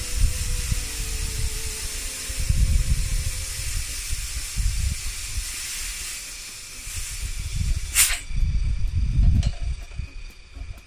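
Compressed air hissing out of an air compressor's tank as it is bled down, tapering off as the tank nears empty, then a sharp click about eight seconds in. Low rumbling noise runs underneath.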